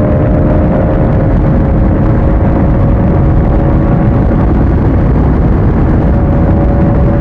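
Motorcycle riding at speed: heavy wind rush buffeting the microphone over a steady engine note that holds one pitch throughout.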